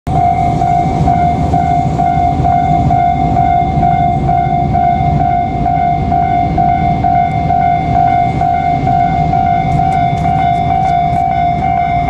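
Japanese level-crossing warning bell ringing steadily, about two strokes a second, over a constant low rumble from the approaching train. A few light clicks come near the end.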